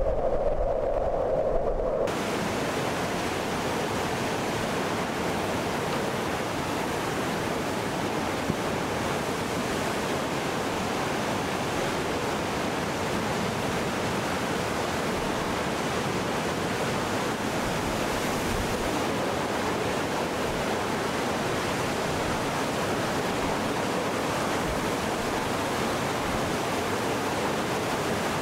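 Hurricane storm surf and wind: a steady, even rush of breaking waves. The first two seconds instead hold a louder low drone that cuts off abruptly.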